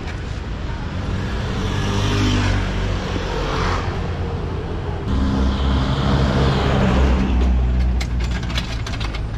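Street traffic: engines of passing road vehicles running with a low hum, one rumbling heavier about five to seven seconds in, and a few sharp clicks near the end.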